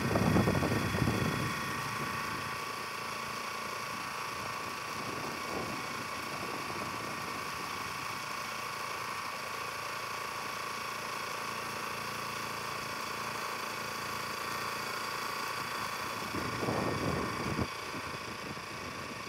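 Small engine of a walk-behind field cultivator running steadily at constant speed, with a louder rumble near the start and again near the end.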